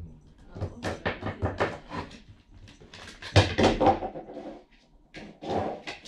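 A cat knocking its food bowl about on a wooden floor: a run of sharp clacks and clatters, loudest about three and a half seconds in. It is the cat's way of demanding food when hungry.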